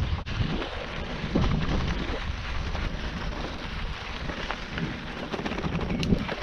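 Bicycle tyres rolling over a gravel and dirt road, with a continual crackle of grit under the wheels, over a steady rumble of wind on the microphone.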